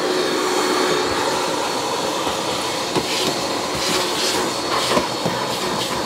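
JPT KVC60 industrial wet-and-dry vacuum cleaner running on one of its two motors, sucking through its brush nozzle as it is worked over car floor carpet. It is a steady rush of air with a steady hum and a thin high whine.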